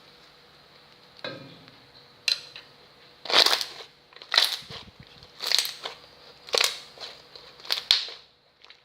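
Slime being squeezed by hand, its trapped air bubbles popping and crackling in bursts about once a second.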